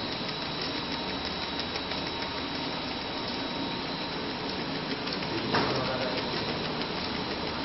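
Heat transfer printing machine running steadily, a continuous mechanical hum with a faint high whine, and a knock about five and a half seconds in.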